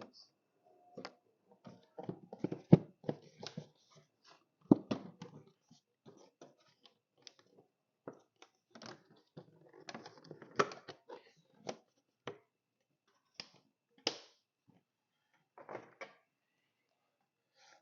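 Irregular clicks and knocks of hard plastic as the air filter housing lid and its clips are handled and refitted over the air filter. The engine is not running.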